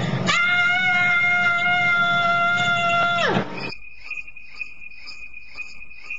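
A held, steady pitched note that slides steeply down in pitch after about three seconds, followed by crickets chirping in a steady, regular pulse: the comic 'crickets' effect for an empty, disappointing moment.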